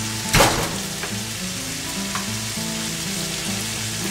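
Steady frying sizzle of sliced bell peppers and onions sautéing in butter and olive oil in a skillet, with one sharp knock about half a second in.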